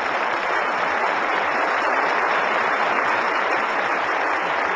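Audience applauding steadily: dense, continuous clapping from a large hall crowd.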